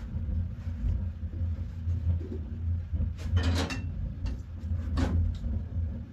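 A steady low rumble, with short clatters of kitchenware about three seconds in and again about five seconds in.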